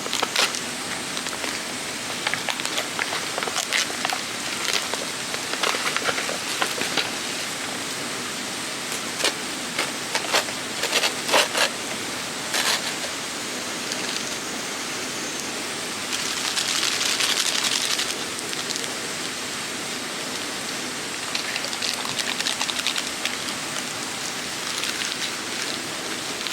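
Steady rushing of a mountain valley stream, with scattered sharp clicks and knocks throughout and a louder hissing swell about two-thirds of the way through.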